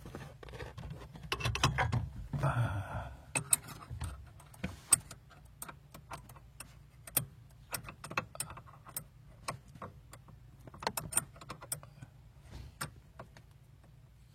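Hand tools clicking and clinking on metal while the lower mounting bolts of a car's steering rack are tightened: irregular sharp metallic clicks, with a short scraping rustle about two seconds in.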